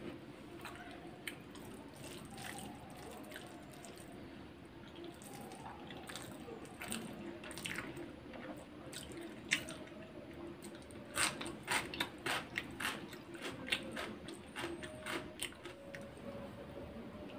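Close-up eating sounds: chewing with wet mouth clicks and smacks, thickening into a quick run of clicks about eleven seconds in.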